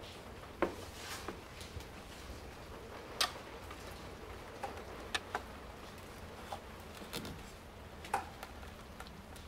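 About half a dozen faint, scattered taps and clicks, irregularly spaced, over a steady low hum.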